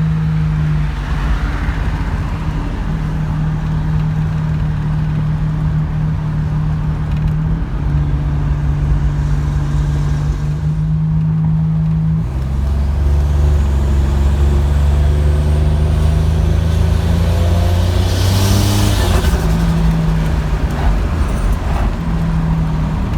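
Buick Grand National's turbocharged V6 running on the road. About halfway through, the engine note drops and a deep rumble grows louder, and there is a brief rushing hiss near the end.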